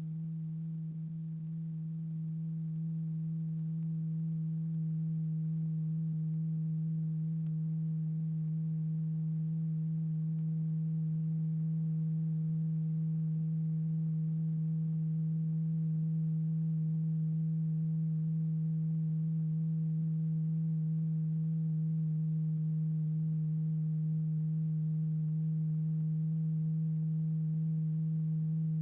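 A low, steady pure tone with faint higher overtones, getting slightly louder over the first few seconds. It is the test tone vibrating a stretched-paper diaphragm strewn with lycopodium powder, driving the powder into a flow pattern.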